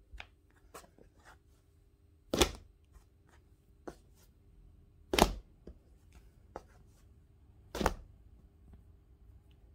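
A slab of clay coated with iron-rich slip and sodium silicate is slapped down onto a work surface three times, roughly every two and a half seconds, with soft knocks of handling between. This slapping stretches the slab and opens up the crackle pattern in its surface.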